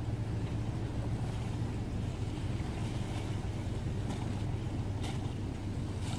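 A steady, low engine hum, with wind noise on the microphone.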